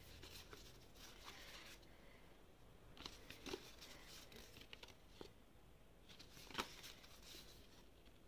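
Faint paper rustling with a few light clicks: a stack of thin printed paper cards being shuffled and leafed through by hand.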